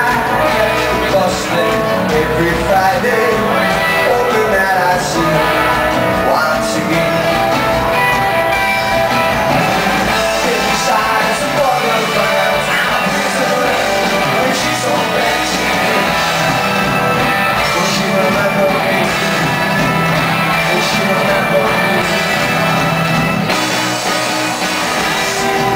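Live rock band playing a song: electric guitar, organ and drums with a singer's vocals, recorded loud from within the audience.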